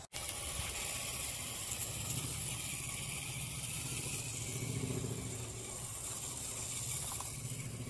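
Electric RC scale crawler truck's motor and geared drivetrain whirring as it crawls up a grassy slope, somewhat louder around the middle.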